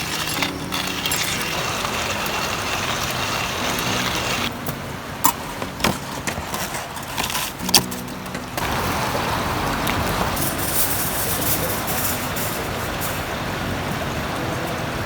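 Background music over a steady rushing noise, with a few sharp clicks about five to eight seconds in.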